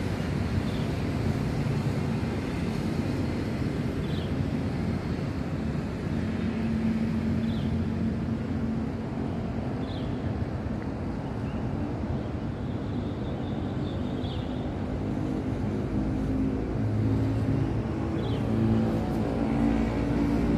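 Distant city road traffic: a steady, even rumble heard from high up, with a few short faint high chirps every few seconds.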